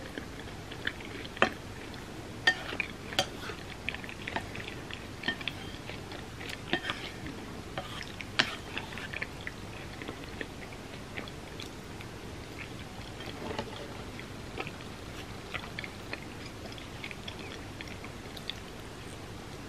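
A person chewing and eating food, wet mouth sounds with many short sharp clicks and smacks, busiest in the first half and sparser later.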